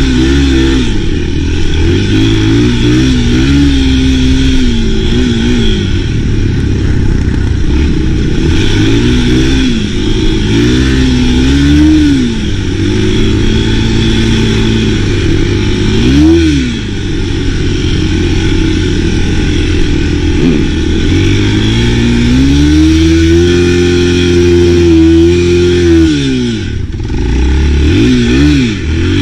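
Enduro motorcycle engine running under riding load, its pitch rising and falling as the throttle is opened and closed. It gives several quick revs and one longer held high rev near the end.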